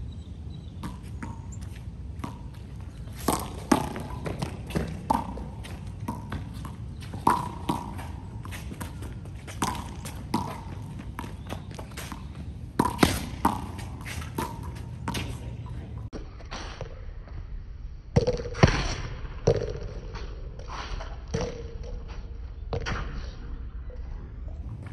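Small rubber handball being struck by hand and bouncing off a concrete wall and court during a rally. It makes a string of irregular sharp smacks and bounces, several of them loud, many followed by a brief ringing ping.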